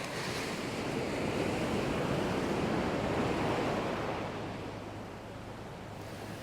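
Surf on a beach: a wave breaks and washes up the sand, swelling over the first few seconds and then fading away.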